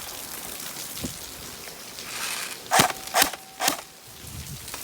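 Steady rain, with three sharp clacks about half a second apart a little past halfway, a faint ringing tone held between them.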